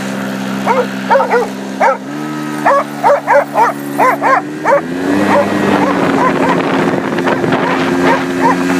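Dogs barking again and again, about a dozen loud barks in the first half and fainter ones after, over the steady hum of a Yamaha SnoScoot snowmobile engine. The engine's pitch steps up about two seconds in and again about halfway through.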